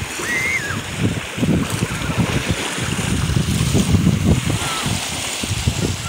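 Wind buffeting the microphone in irregular low gusts over the wash of small waves lapping in shallow sea water. A few faint, short high cries come through.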